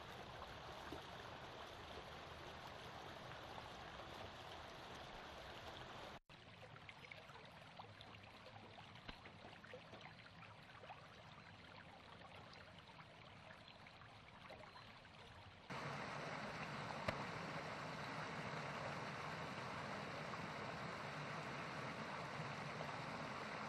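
Faint, steady running water of a stream, dropping a little in level about six seconds in and rising again about sixteen seconds in.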